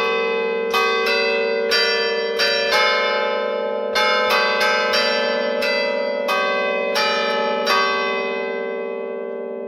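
Bronze church bells played by hand from a belfry keyboard in a Bergamasque suonata d'allegrezza: a quick tune of struck notes of several pitches over a lingering hum. The last strike comes near the end, and the bells are left ringing.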